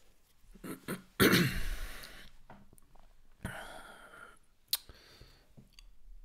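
A man clearing his throat: a loud, rough cough-like burst about a second in, and a second, quieter one a couple of seconds later. A single sharp click follows shortly after.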